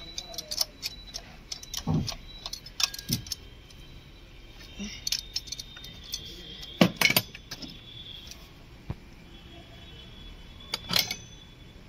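Metal hand tools and a locking tool clinking and knocking against a VW Polo 1.2 engine's camshaft pulley as the pulley is set for timing, with the belt off. A handful of separate sharp clicks and taps, the loudest a quick cluster about seven seconds in.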